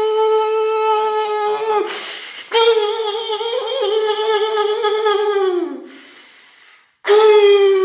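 A man's loud, high-pitched celebratory goal shouts, each held on one note for two to three seconds and sliding down in pitch at the end. There are three, the third starting near the end, with short breaths between.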